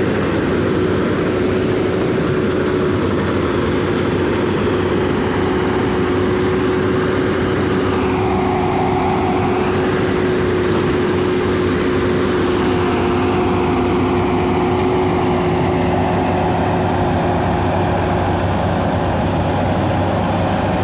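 Paddy harvesting machine running steadily: a continuous engine drone with a held mid-pitched tone over it.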